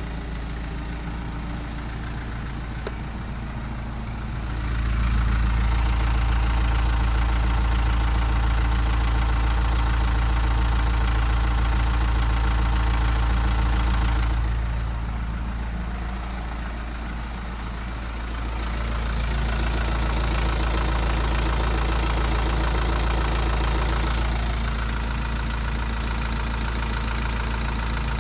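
BMW 118d's N47 four-cylinder diesel engine running at idle, with the timing chain ticking and rattling. The sound grows louder about five seconds in, dips for a few seconds in the middle, then comes back up.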